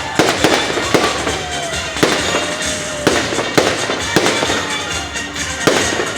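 Fireworks display: aerial shells bursting in a quick series of sharp bangs, roughly one to two a second.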